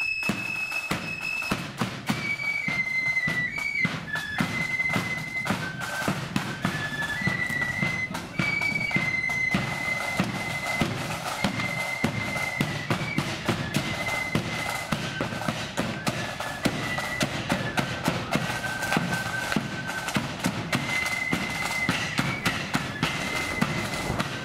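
Blood-and-thunder marching flute band playing: a shrill flute melody over heavy, fast drumming from bass drum and drums, with cymbals.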